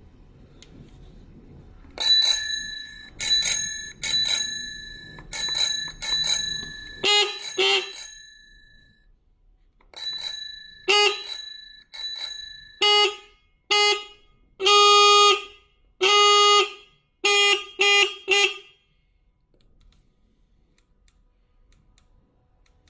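Bicycle horn prototypes sounded in turn: a run of about a dozen bell-like rings, each dying away, then seven steady electronic beeps, two of them longer than the others.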